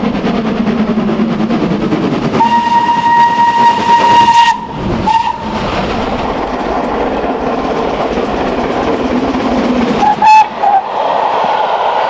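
Steam locomotive running, with a long steam whistle about two seconds in, a short toot just after, and two short toots near the end over the steady noise of the train.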